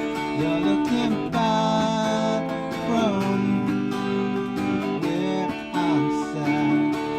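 Music led by acoustic guitar, with strummed and plucked chords and sustained melodic notes that slide in pitch.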